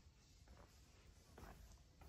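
Near silence with two faint footsteps on a concrete floor, over a low hum.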